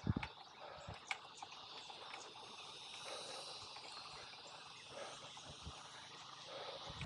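Faint, steady, high-pitched insect chorus, like crickets or cicadas, with a few short clicks near the start.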